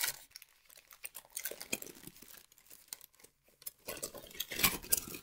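Brown kraft-paper wrapping crinkling and rustling in the hands as a small package is unwrapped, in irregular handling noises that grow busier and louder about four seconds in.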